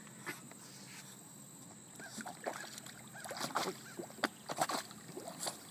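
Light, irregular water splashing and sloshing, starting about two seconds in, in a quick uneven run of small splashes.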